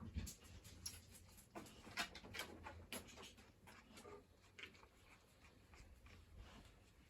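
Faint, irregular scratching and light clicks, as from handling small tools and a wooden block.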